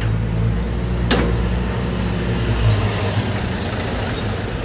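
Steady low mechanical rumble, like an engine or motor running, with a single sharp click about a second in.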